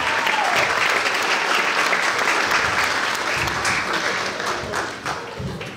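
Applause from many people clapping at once, growing fainter near the end.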